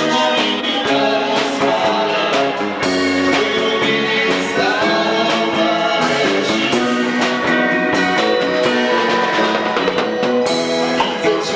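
A band playing music with guitar and drums, steady and loud throughout.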